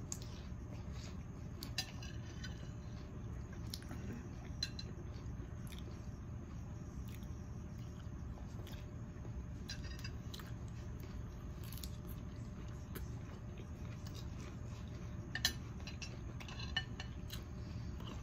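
Cutlery clinking and tapping against a plate during eating, a light clink every few seconds with two sharper ones near the end, over a steady low hum.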